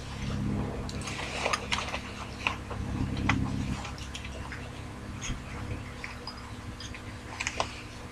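Scattered light clicks and clinks of small objects being handled, over a low steady hum.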